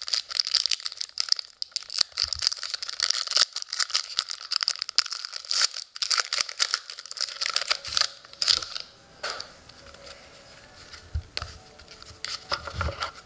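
Plastic wrapper of a hockey trading-card pack being torn open and crinkled, a dense crackling with many small clicks for about the first eight seconds. After that it gives way to quieter handling of the cards.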